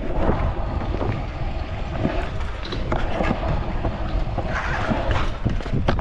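Stunt scooter wheels rolling fast over a concrete skatepark bowl, a steady rumble with wind noise on the microphone. A few sharp knocks come near the end.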